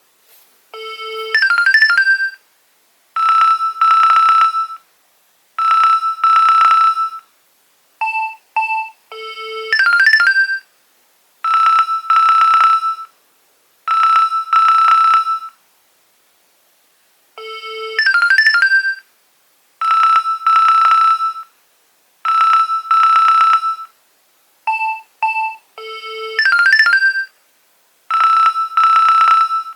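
Nokia 2300 mobile phone playing a ringtone: a loud electronic melody in short phrases with brief gaps between them. The tune loops, starting over about halfway through.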